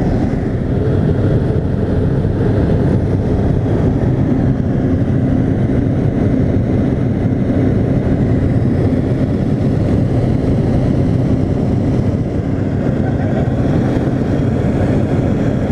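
Steady drone of a small single-engine propeller plane's engine and propeller in flight, heard from inside the cabin, with the rush of air over the airframe.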